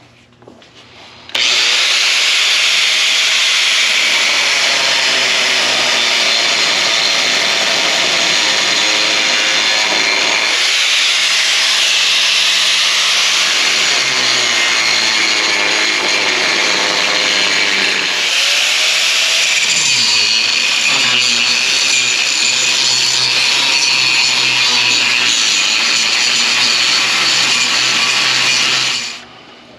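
Power cutting tool cutting through the weld that holds a rusted steel crossmember bar in a pickup's frame. It runs as one long, loud cut of almost thirty seconds, starting suddenly just after the start and stopping shortly before the end, and its sound changes for several seconds in the middle.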